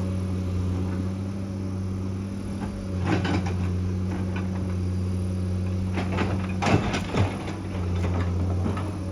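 Excavator diesel engine running steadily under load, with clanks and scrapes of the bucket working against rock and earth about three seconds in and again around six to seven seconds, the loudest near the end of that second cluster.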